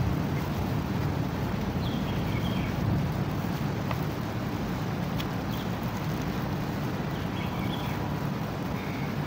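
Birds chirping, once about two seconds in and again near the end, over a steady low background rumble.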